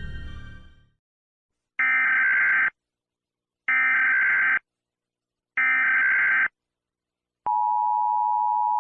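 Music fades out in the first second. Then comes an Emergency Alert System header: three identical one-second bursts of digital data tones, each about a second apart. The steady two-tone EAS attention signal starts about a second after the last burst, near the end.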